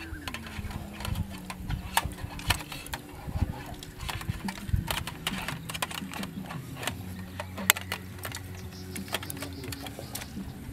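A stainless wire grill grate clinks and taps against the frame of a small folding stainless charcoal grill as it is handled and set in place, in repeated light metallic clicks with one sharper click about three-quarters of the way through. A steady low drone runs underneath.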